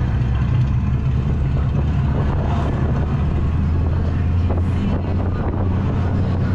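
Go-kart on the track: a steady low motor hum with wind noise on the microphone.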